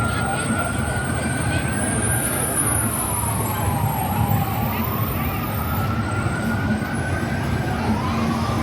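A siren wailing, its pitch slowly rising and falling about once every four seconds, with a second siren overlapping near the start and again near the end, over a steady background rumble.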